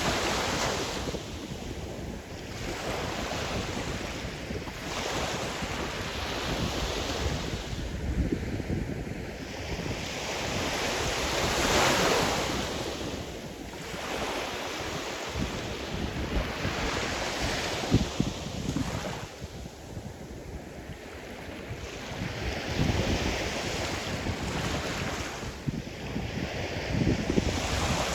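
Sea surf: waves breaking and washing in one after another, each swelling and falling away over a few seconds, the biggest about twelve seconds in. Wind rumbles on the microphone underneath.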